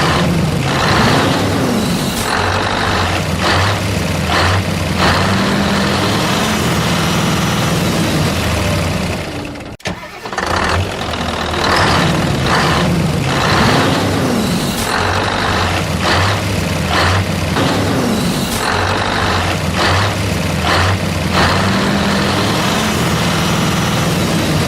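Heavy vehicle engine running steadily with knocks and clatter over it, a stretch of about ten seconds that repeats after a brief dropout.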